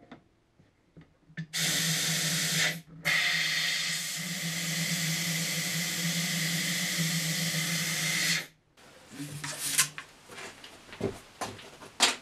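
Compressed air blowing into a tyre's cavity, a loud steady hiss lasting about seven seconds with one short break near its start, followed by small knocks and clicks. The air purges leftover unburnt petrol vapour and carbon dioxide from the tyre after a failed explosion attempt to seat the bead.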